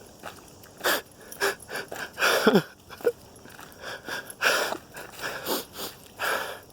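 A man crying: ragged, gasping breaths and sniffs at irregular intervals about a second apart, with one short voiced sob that falls in pitch about two and a half seconds in.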